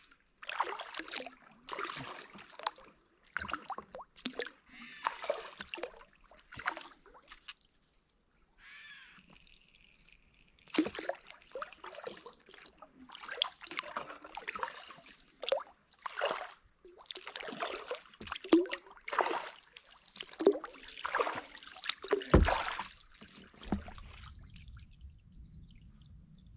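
Kayak paddle strokes: the blades dipping into still swamp water, with water trickling and dripping off the paddle, about once a second, pausing for a few seconds partway through. A single loud knock comes near the end, followed by a low steady rumble.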